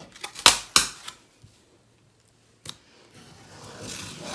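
X-Acto knife cutting foam board along a metal ruler: a few sharp clicks about half a second in and again near the three-second mark, then a scraping slice that builds near the end.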